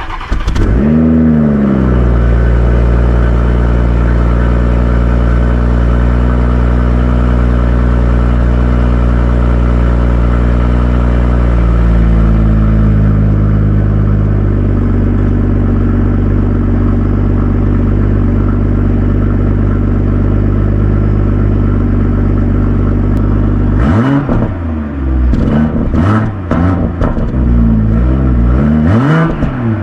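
BMW M440i's 3.0-litre turbocharged inline-six, fitted with aftermarket carbon fibre exhaust tips, starting with a quick flare of revs. It settles to a steady idle whose note steps down slightly about halfway through. Near the end it is blipped several times, the exhaust note rising and falling with each rev.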